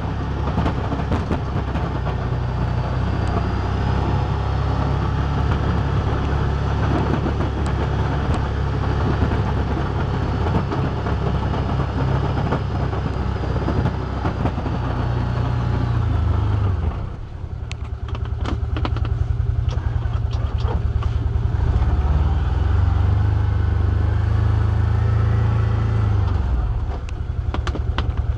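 Can-Am Commander 1000 XT side-by-side's Rotax V-twin engine running while it pushes snow with its front plow. About two-thirds of the way through, the engine note dips and then builds back up, with scattered clicks and knocks after the dip.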